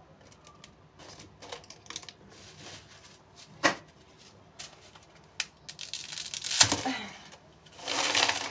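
Dry spaghetti being handled and snapped, the stiff strands giving scattered clicks and crackles with one sharp snap a few seconds in, then rustling bursts later on as the pasta is moved about.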